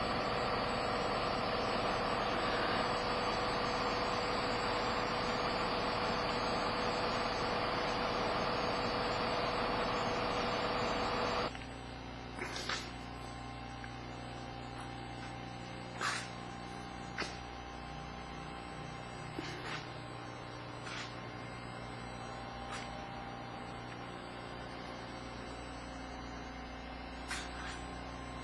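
CNC engraving machine running with a steady whirr for about eleven seconds, then cutting off suddenly. What remains is a quieter steady hum broken by a few sharp clicks.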